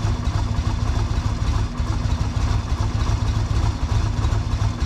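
1995 Yamaha Virago 250's air-cooled V-twin idling steadily on a newly fitted replacement carburetor, with the choke off.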